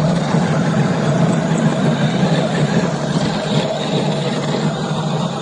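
1/10-scale 4WD RC car driving over rough ground: a steady, dense rumbling noise of its motor and tyres.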